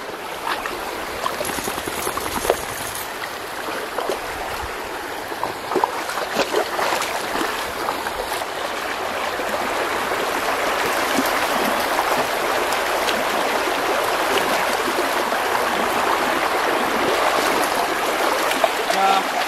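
Shallow river rushing over stones, with splashes of bare feet wading through it. The rush of water grows louder about halfway through.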